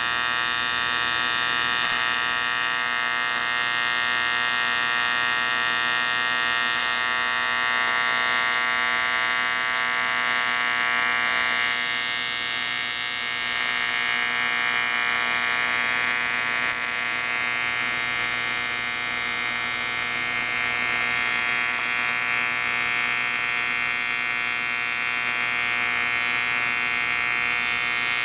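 AC TIG welding arc buzzing steadily at high current, about 275 amps with the pedal at full throttle, while filling an exhaust-port stud hole in an aluminium Harley-Davidson Twin Cam cylinder head.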